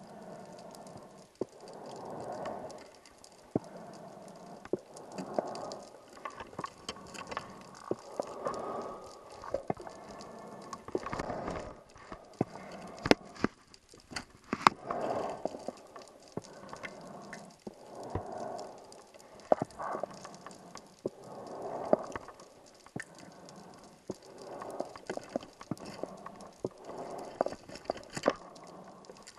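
Scuba diver's regulator breathing underwater: bubbly exhalations that swell and fade about every three seconds, with scattered sharp clicks and two louder knocks near the middle.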